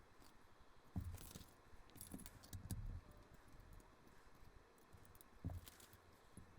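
LEGO bricks being handled and pressed together: scattered light clicks and knocks, a cluster about a second in, more around two to three seconds in, and one more about five and a half seconds in.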